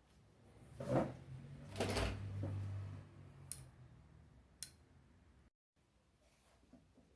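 Handling noises of small fan-motor parts on a workbench: two rustling, scraping bursts, the second with a low hum for about a second, then two sharp clicks.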